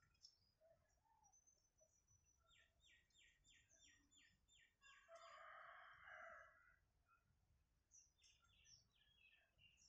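Faint small birds chirping and calling in the background, with a quick run of about eight evenly spaced chirps near the middle and another run near the end. A short, louder rush of noise comes about halfway through.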